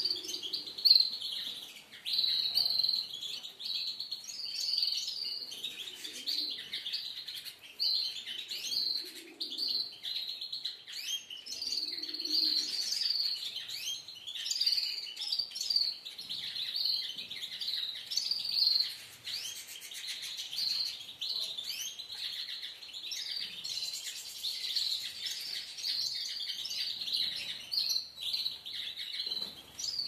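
A flock of aviary canaries and other small finches chirping and twittering together, many short overlapping calls and bits of song with no pause.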